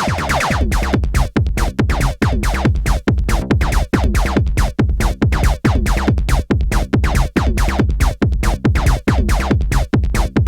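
Electronic dance music played live on hardware synthesizers and a drum machine: a steady, fast kick-drum beat under synth parts, with a bright synth line fading out about half a second in.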